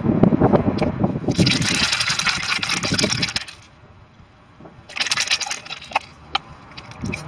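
Aerosol spray can of anti-corrosion coating being shaken, its mixing ball rattling, for about three seconds, then again briefly about five seconds in, as the paint is mixed before spraying.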